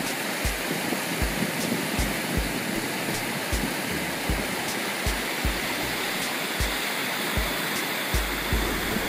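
Water pouring over a low river dam and churning in the white water below, a steady rush, with background music carrying a regular low bass beat.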